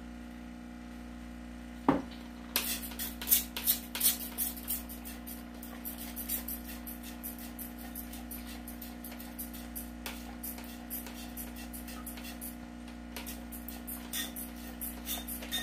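Hand trigger spray bottle squirting water in quick repeated pumps, washing wet silver powder out of a plastic beaker. The squirts are densest a few seconds in and go on more sparsely after that. There is a single knock about two seconds in and a steady low hum underneath.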